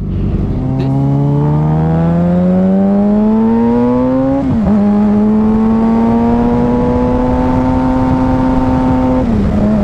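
Suzuki GSX-R sportbike's inline-four engine accelerating. The engine note climbs steadily, drops with an upshift about four and a half seconds in, climbs again more slowly in the next gear, and eases off near the end.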